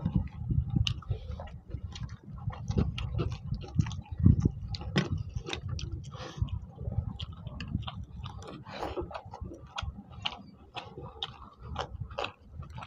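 Close-up chewing and lip-smacking of people eating rice and chicken curry by hand, with many irregular short wet clicks from mouths and fingers.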